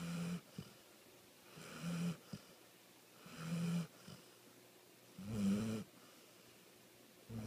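A sleeping dog snoring: a buzzing snore about every two seconds, four in all with a fifth just starting at the end, the last full one the loudest.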